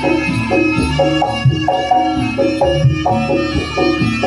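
Live Javanese gamelan accompaniment for a jaranan dance: metallophones strike a fast, repeating melody over drum beats.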